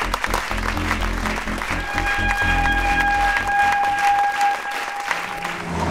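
A crowd applauding, a dense patter of many hands clapping, with background music under it that holds one long high note from about two seconds in until near the end.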